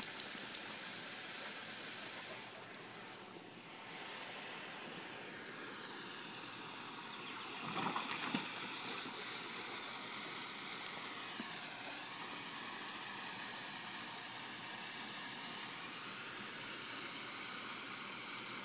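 Garden hose running into a plastic kiddie pool: a steady, soft hiss of flowing water, briefly louder about eight seconds in.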